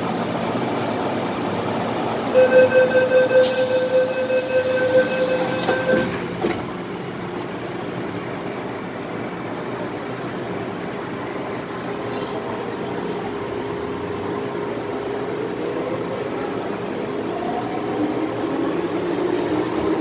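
MTR M-Train door-closing chime beeping rapidly for about three and a half seconds as the doors slide shut, ending in a knock. Then the electric train pulls away, its motor whine rising in pitch near the end.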